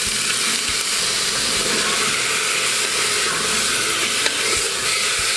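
Chunks of raw chicken breast sizzling in hot olive oil with chopped garlic and onion in an aluminium pressure cooker pot, stirred with a wooden spoon. A single light click a little over four seconds in.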